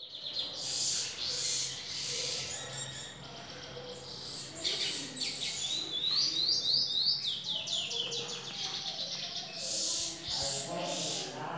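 Caged lesser goldfinch (dominico) singing a long, varied twittering song of high chirps, trills and rising whistled notes.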